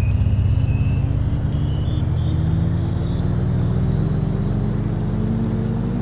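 A motor vehicle's engine running with its pitch rising slowly and steadily over a heavy low rumble, with a faint high whine climbing alongside it.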